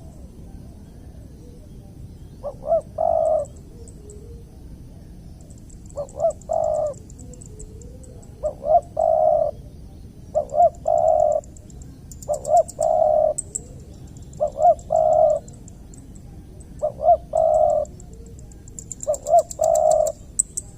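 Derkuku dove cooing in a repeated call, two short notes and then a longer held note, about every two seconds, eight times. This is the calling sound used to lure rival males. A fast, high, ticking chirp comes and goes alongside it.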